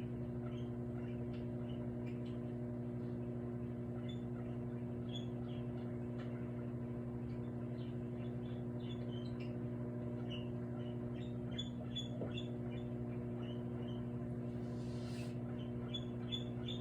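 Microwave oven running with a steady electrical hum, with scattered faint high squeaks and ticks over it and one brief hiss near the end.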